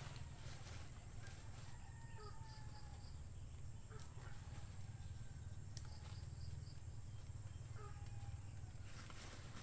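Faint rural ambience: a steady low hum under distant birds calling with short chirps, and a couple of soft clicks from hand weeding with a small hoe.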